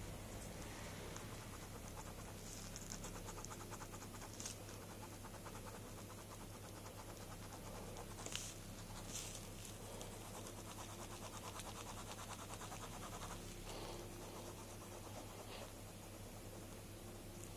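Ballpoint pen scratching faintly on paper in quick back-and-forth shading strokes, with a few sharper ticks around the middle. A steady low hum runs underneath.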